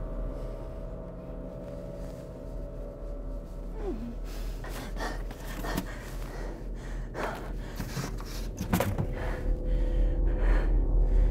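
A woman's frightened gasps and heavy breaths, starting about four seconds in and coming in short, uneven bursts that grow louder toward the end, over a low steady hum.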